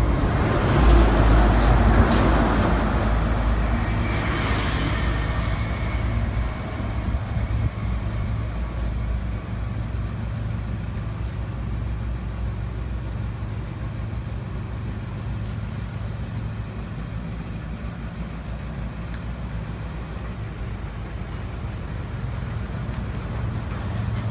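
A motor vehicle running: a loud rush of noise over the first few seconds, then a steady low engine hum that slowly gets quieter.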